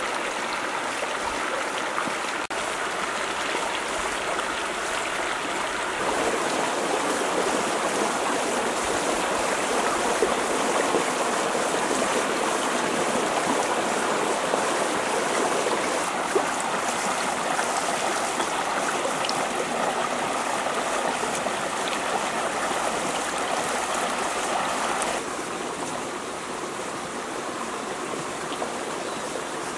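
Shallow river rushing and splashing over rocks in a steady noise. It gets louder about six seconds in and a little softer again near the end.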